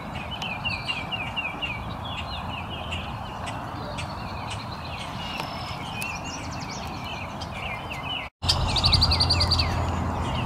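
Wood duck ducklings peeping: a steady run of short, high, falling chirps, several a second. After a brief break near the end, a louder stretch with a rapid high trill.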